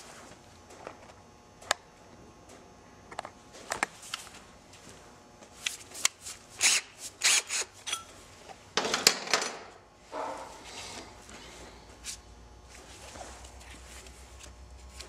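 Metal tools clicking and knocking against a transmission case as a cordless drill with a reamer is handled at the servo bores. A quick run of sharp clicks comes about six to nine seconds in, ending in a short rasping burst.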